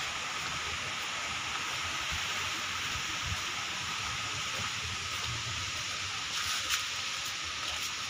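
Steady outdoor background hiss with no distinct source, and a faint tap about six and a half seconds in.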